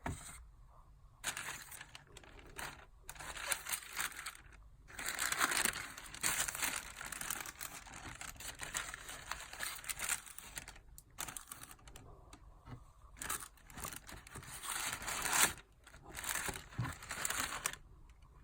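Packing paper or wrapping crinkling and rustling in irregular bursts as it is handled and pulled away during an unboxing.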